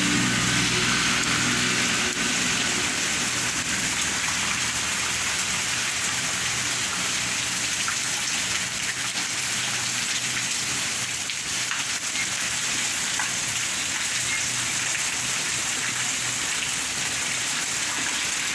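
Heavy rain falling steadily and pattering on the ground. A low engine hum fades out in the first couple of seconds.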